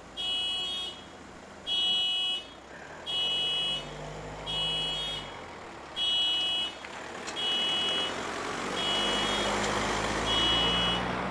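Car alarm set off by the key fob's panic button: a high electronic beep repeating about every second and a half, eight beeps in all. Under it a low rumble and hiss build up in the second half.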